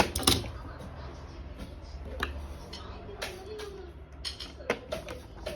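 Irregular sharp clicks and knocks of small hard objects being handled: batteries and a battery cover going into a toy washing machine. The loudest click comes right at the start, with a low hum underneath.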